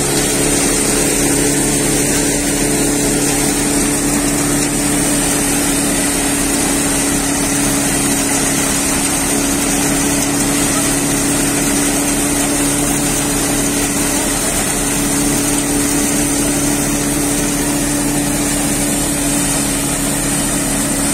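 Multi-crop thresher running steadily as paddy is fed into it: a loud, continuous mechanical drone with a constant hum.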